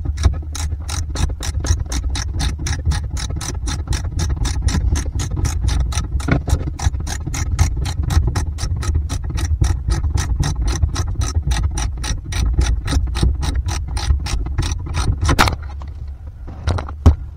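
A 7/16-inch socket ratchet clicking rapidly and steadily, about five clicks a second, as it tightens the nut on the bolt that locks the steering cable into the helm mechanism. The clicking stops shortly before the end, and a couple of single clicks follow.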